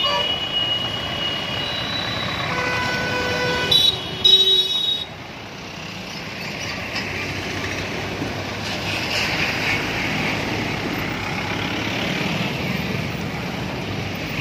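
Vehicle horns honking in the first five seconds, several long tones one after another, some overlapping. Then the steady noise of a convoy of cars, vans and motorcycles driving past.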